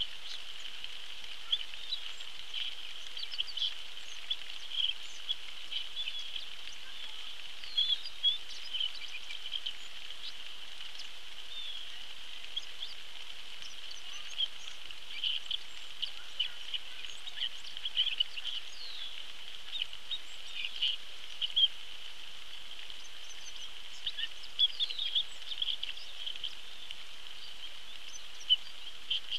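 Outdoor pond ambience in rain: a steady hiss of rainfall under a constant high-pitched drone, with many short bird chirps and calls scattered through it.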